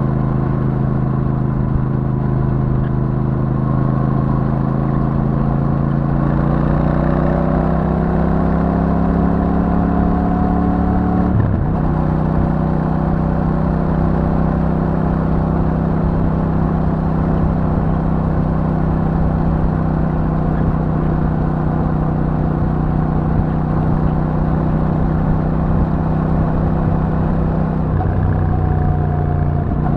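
Royal Enfield Super Meteor 650's 648 cc parallel-twin engine through its stock exhaust under way. The engine note climbs as the bike accelerates, drops sharply about a third of the way in as it shifts up a gear, then runs at a steady cruising pitch. The note changes again near the end.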